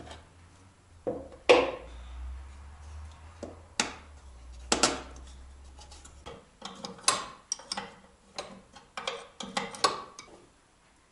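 Scattered metallic clinks, clicks and knocks of hand tools and fittings being worked at a VAZ-2106's clutch master cylinder as it is unbolted, the loudest knock about a second and a half in. A low hum sits underneath and stops about six seconds in.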